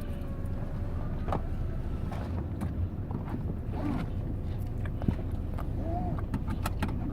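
Steady low rumble of a car heard from inside the cabin, with scattered small clicks and rustles.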